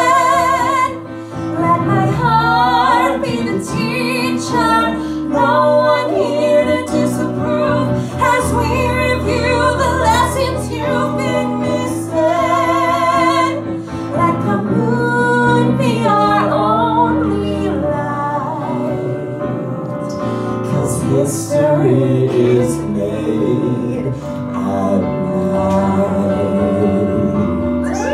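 A woman and a man singing a show-tune duet to accompaniment, her voice the stronger, with wavering vibrato on held notes.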